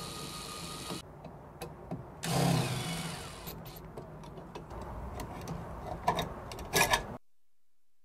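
Small cordless drill-driver whirring in two short runs as it backs out the screws holding wall switches in metal electrical boxes, followed by a few light clicks and taps of the switch and hardware being handled.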